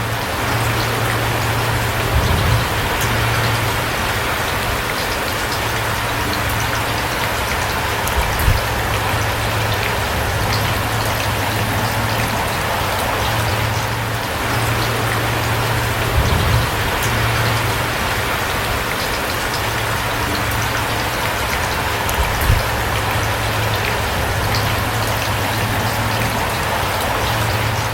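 Steady rain falling, an even hiss with a constant low rumble underneath, broken by four dull low thumps spread through it.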